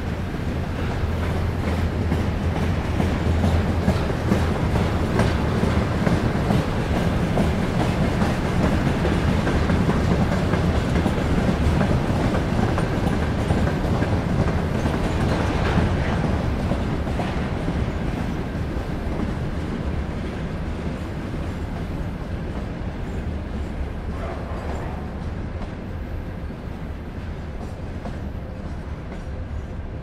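Freight train rolling past, its wagon wheels clattering steadily over the rail joints. Loudest in the first half, then slowly fading as the train moves away.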